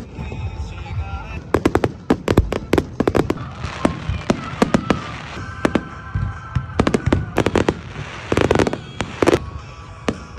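Aerial fireworks going off in quick succession: a rapid string of sharp bangs and crackles, with the densest barrages about two and seven seconds in and a couple of deeper booms near the end.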